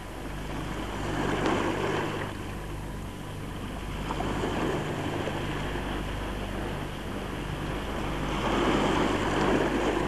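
Sea waves washing against a rocky shore, swelling twice: about a second in and again near the end. A steady low hum runs underneath.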